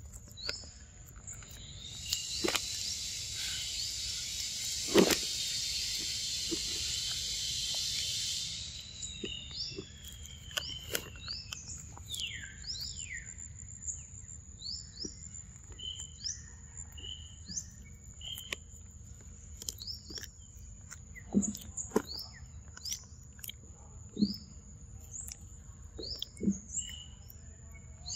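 Outdoor bird chirps repeating throughout over a steady high insect whine, with a louder insect buzz for about six seconds near the start. A macaque eating mango close by adds scattered sharp smacks and clicks.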